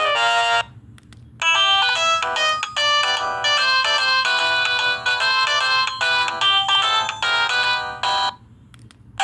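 Ringtones of an LG SD2130 phone: one tune ends in a run of falling notes, and after a short pause another melody plays for about seven seconds, then stops briefly before the next begins.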